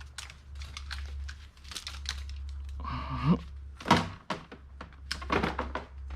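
Plastic chargers and power cords being handled and tossed into a bin: a string of clicks and knocks, with a louder thunk about four seconds in, over a low steady hum.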